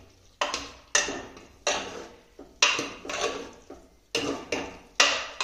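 Metal ladle knocking and scraping against the inside of a metal pressure cooker as dal and bathua greens are stirred together. There are about eight sharp knocks at uneven intervals.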